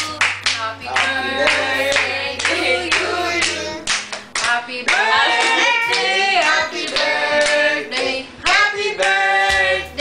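A small group of adults and children singing together and clapping along.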